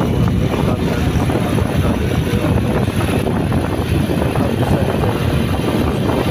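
Wind buffeting the microphone on a moving open vehicle, a steady rumbling rush mixed with engine and road noise.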